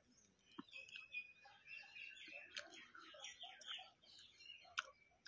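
Faint birdsong: a run of short, quickly repeated chirps, with a few sharp clicks.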